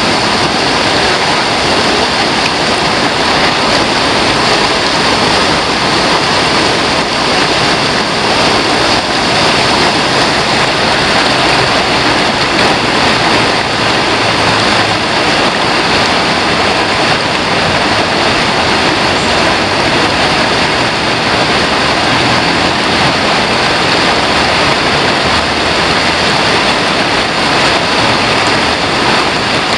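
Steady, loud rush of a shallow rocky river, water running over boulders and small rapids.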